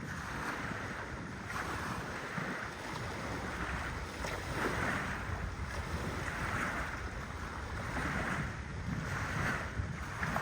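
Wind buffeting the microphone with a low rumble, over sea waves washing in, swelling about every second or two.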